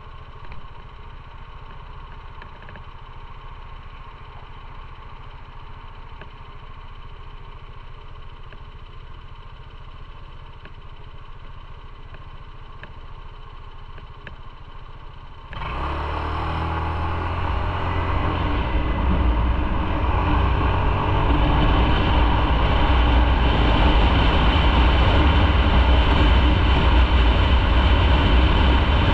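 Motorcycle engine idling low and steady. About halfway through, the sound jumps suddenly to much louder engine and wind noise, which keeps building for several seconds as the bike rides off and gathers speed.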